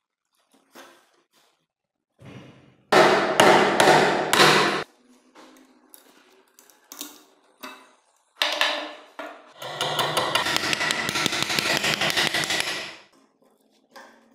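Old wooden kukri handle being broken apart and pulled off its rusty tang: loud bursts of wood cracking and crunching, then a longer stretch of dense crackling near the end.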